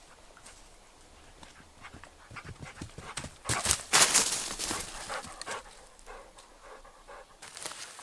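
Dog panting in quick, rhythmic breaths, with a louder rushing noise around the middle.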